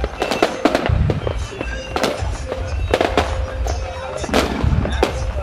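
Aerial fireworks bursting in quick succession: many sharp bangs and crackles, with a deep rumble underneath from about a second in.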